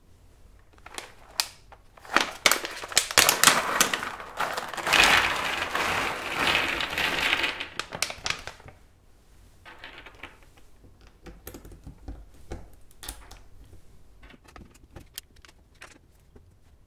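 A trayful of plastic Lilac mechanical keyboard switches clattering out onto the mat in a dense rattle that starts a couple of seconds in and lasts about six seconds. After it come scattered single clicks as switches are pressed into the brass keyboard plate.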